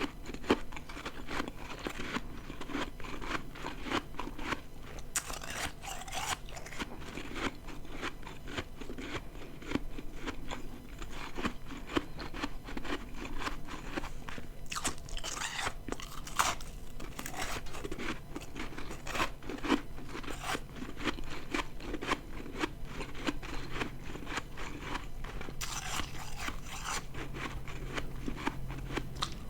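Close-up crunching of ice being bitten and chewed: a continuous run of small crackling crunches, with a few louder bites along the way.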